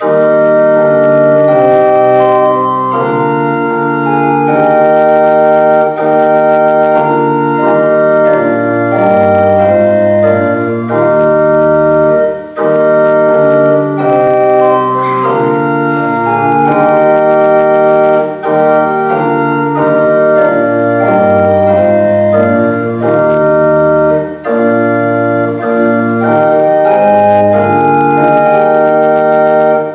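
Church organ playing slow, sustained chords over a moving bass line, in phrases with short breaks about every six seconds, like a hymn tune. It starts abruptly at the beginning.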